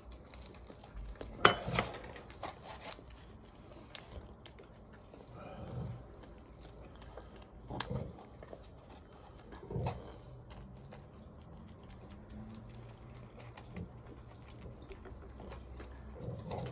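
Chewing and mouth sounds of a man eating cheese pide, with scattered light clicks and knocks, the sharpest about one and a half seconds in.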